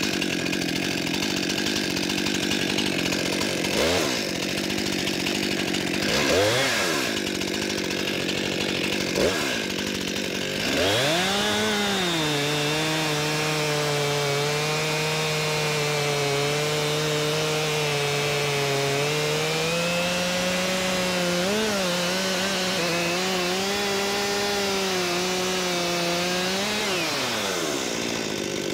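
Brand-new Stihl MS 261 C-M two-stroke chainsaw idling with three short throttle blips, then revving up about eleven seconds in and bucking through a log, its engine note pulled down and held steady under load through the cut. Near the end it revs free as the cut finishes and drops back.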